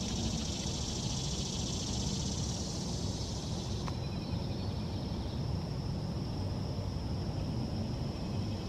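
Steady outdoor background noise: a low rumble with a high, even hiss above it that thins out about four seconds in. No distinct bird calls stand out.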